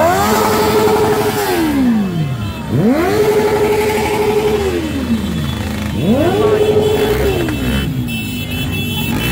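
Motorcycle engine revved hard three times, about three seconds apart. Each time the pitch climbs quickly, holds high for about a second and then falls back, over the running of other motorcycles.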